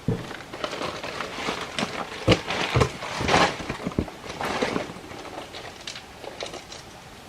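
Scattered knocks, clicks and scuffs of things being handled, with a few sharper knocks in the middle.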